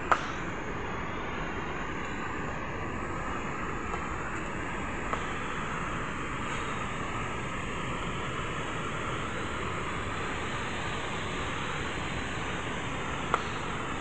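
Steady, unchanging rush of a large waterfall. A sharp click comes just after the start and another near the end.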